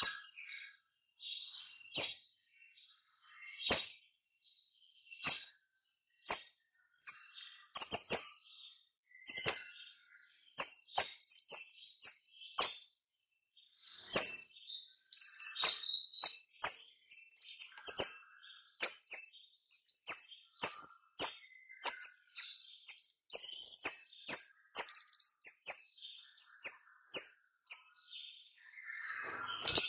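Kemade songbird firing off short, sharp, high chirps. They come singly, a second or more apart, at first, then in dense, rapid runs from about ten seconds in. This is the tight-packed 'nembak' calling that keepers play to get other kemade calling.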